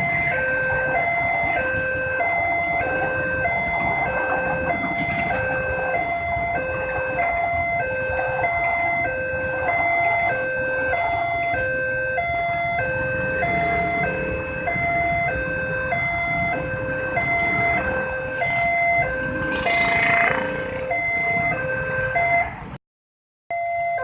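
Railway level-crossing warning alarm sounding a repeating electronic two-tone chime, alternating about once a second, over rumbling vehicle noise. The sound cuts out abruptly for a moment near the end.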